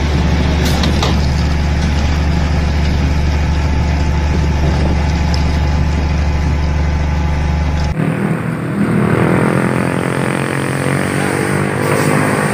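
Heavy diesel truck engines running while tipping loads. First a steady low drone as a hook-lift truck tips its container of rubble, then, after a cut about eight seconds in, a dump truck's engine with a rising note as its bed tips sand.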